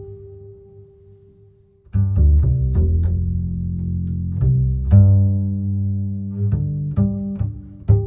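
Music: a held note dies away, then about two seconds in a loud passage of deep bass notes with sharp plucked attacks begins.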